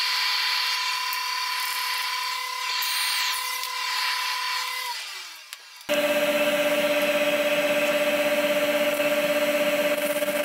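Stick-welding arc on carbon steel pipe, powered by a Miller XMT 400 ArcReach: a steady crackling hiss with a whine in it. It dies away about five seconds in and starts again abruptly about a second later, with the whine now lower in pitch.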